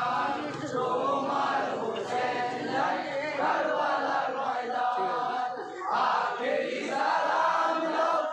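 A group of men chanting a Bangla marsiya, a Shia elegy for Husain, in unison phrases, with a short break about six seconds in.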